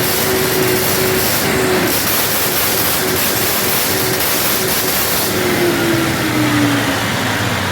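Standby generator engine running steadily and loudly, with a tone in its hum that slides lower about six seconds in.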